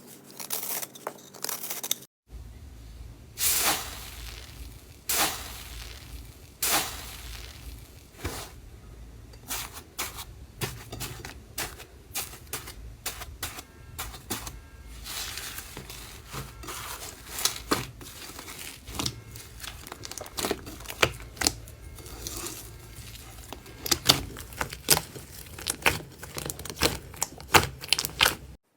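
Slime being squeezed, poked and stretched by hand, giving a steady run of sharp crackling clicks and pops, with louder pops scattered through and a denser burst near the end. A faint low hum sits underneath, and the sound cuts out briefly about two seconds in.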